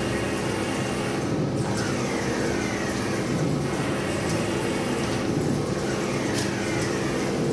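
Four-colour UV printer running: a steady machine hum with a falling whir that repeats about every two seconds, and a sharp click near the end.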